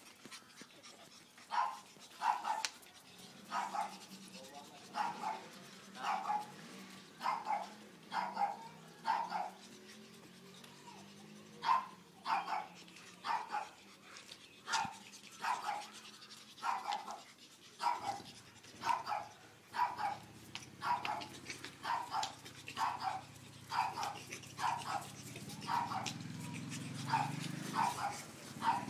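Pug puppy barking in short, high yaps, about one a second, with a low hum underneath that grows louder near the end.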